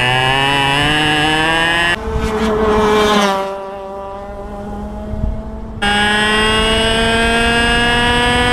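Two-stroke racing kart engine heard from onboard, at full throttle with its pitch climbing as the kart accelerates. About two seconds in, the pitch falls and the engine goes quieter, as when lifting off for a corner. Near six seconds it snaps back loud, the note rising steadily again under full throttle.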